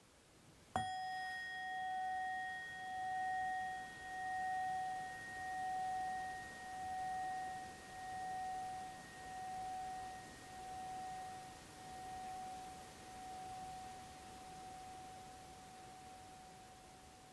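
A single stroke on a ringing metal chime about a second in. It holds one clear tone with fainter higher overtones, wobbling slowly in loudness as it gradually fades away.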